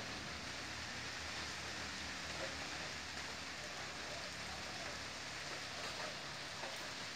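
Steady rain falling on a wet paved yard and its puddles: an even, constant hiss of drops.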